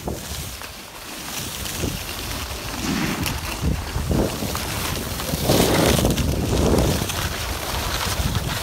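Skis sliding and scraping over packed snow on a downhill run, a steady rushing hiss that swells louder a few times, with wind buffeting the phone's microphone.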